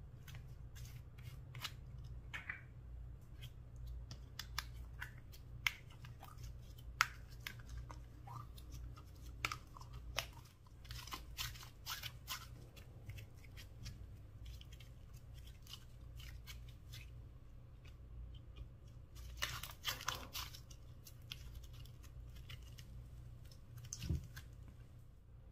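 Slime being squeezed out of a small plastic jar by hand and stretched across a bowl: scattered sticky clicks and crackles, denser about eleven seconds in and again near twenty seconds, with a single knock near the end.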